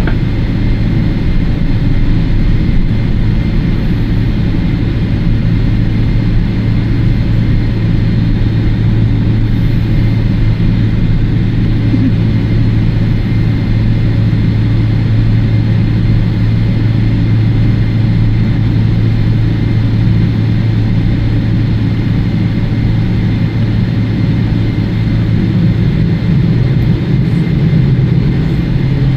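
Cabin noise of a Boeing 777-300ER at takeoff: its twin GE90-115B turbofans running at takeoff thrust, a loud steady drone with a deep hum over a rushing noise.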